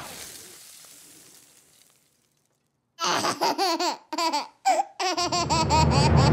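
A baby giggling in a string of short, high, wavering bursts, starting about halfway in after a brief silence. A low steady drone comes in under the giggles near the end.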